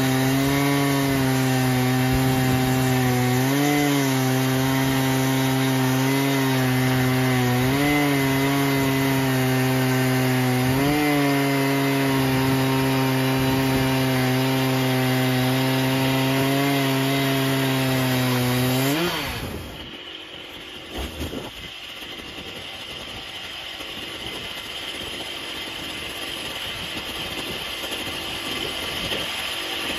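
Stihl MS880 two-stroke chainsaw on a Logosol F2 chainsaw mill running at full throttle under load while ripping a yew log lengthwise. The engine note holds steady with a few brief rises in pitch. About two-thirds of the way through, the revs flare up and the engine note stops, leaving a much quieter sound.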